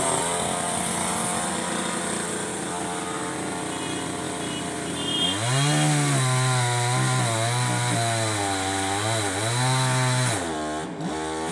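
Chainsaw cutting into the base of a tree trunk. About five seconds in it grows louder with a clear pitch that sags and recovers as the chain bites into the wood, easing off briefly near the end.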